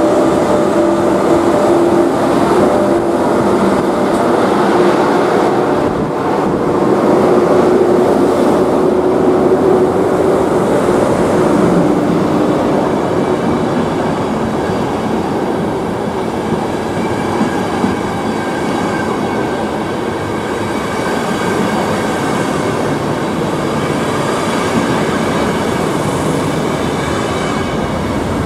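A ČD class 151 electric locomotive and its passenger coaches running past. There is a steady hum of several tones in the first half, then the continuous running noise of the coaches' wheels on the rails, with a thin high whine in the second half.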